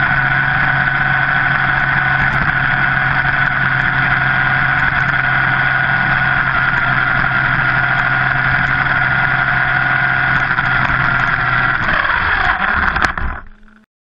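Reely Ranger brushless RC buggy driving through snow, heard from its onboard camera: a steady high electric-motor whine over drivetrain and running noise, fading out near the end.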